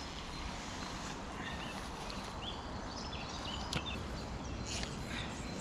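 Outdoor background with a steady low noise and a few short bird chirps in the middle, plus a couple of faint clicks.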